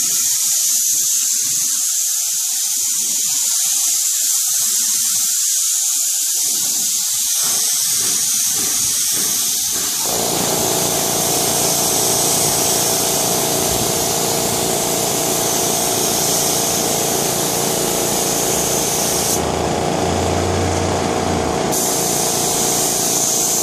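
Gravity-feed spray gun hissing steadily as compressed air atomizes finish onto a wood slab tabletop. The hiss grows fuller about ten seconds in, and a brief low hum joins it about twenty seconds in.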